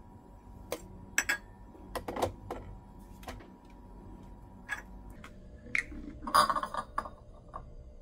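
Metal clicks and knocks from an espresso portafilter being handled and twisted into the group head of a Breville Barista Express espresso machine, with a louder scraping rattle about six and a half seconds in.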